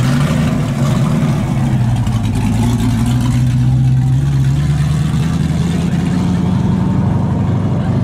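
Modified first-generation Mazda Miata's engine running loud as the car pulls slowly away, a deep steady exhaust note whose pitch creeps up slightly about halfway through.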